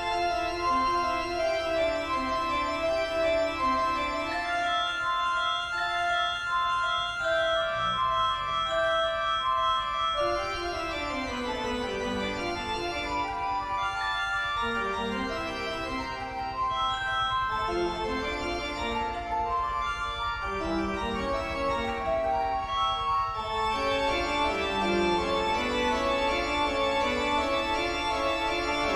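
Background music played on an organ-like keyboard, with sustained chords and a moving lower line.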